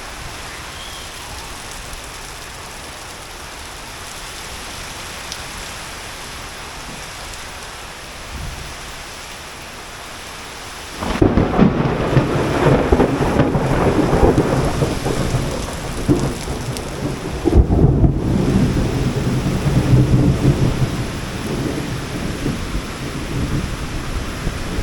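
Heavy rain falling as a steady hiss; about halfway through, a sudden loud, low rumbling sets in over the rain and keeps going, rising and falling.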